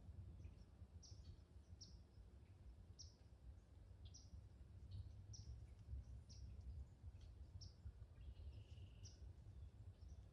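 Faint woodland ambience: a small bird gives short, high chirps over and over, about one or two a second, over a low steady rumble of wind or distant noise.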